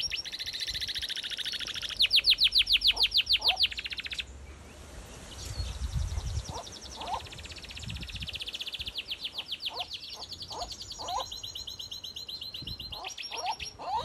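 Domestic canary singing in long, rapid trills of quickly repeated high notes, loudest about two to four seconds in. After a pause of a few seconds the trilling resumes and shifts in pitch from one run to the next. Other birds give short chirps underneath.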